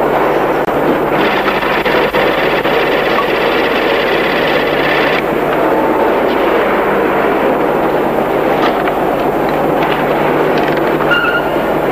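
Steady, loud background noise with a faint low hum and no speech: the ambience of a large hall as picked up by an old camcorder's built-in microphone.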